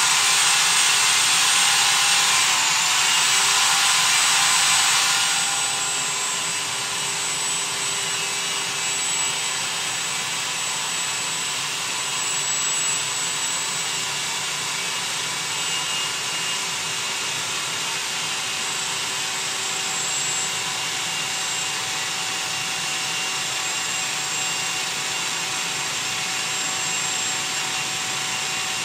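A motor-driven machine running steadily, with a hiss and a few faint steady whines. It is louder for about the first five seconds, then settles to a steady level.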